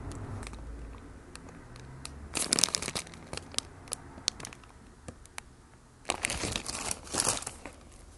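Paper burger wrapper crinkling as it is unwrapped by hand, in two bouts of rustling, a little over two seconds in and again about six seconds in, with scattered light ticks between them.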